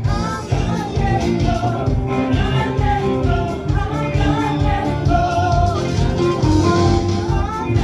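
Live worship band playing an upbeat song: electric and acoustic guitars and keyboard over a steady beat, with singers on microphones.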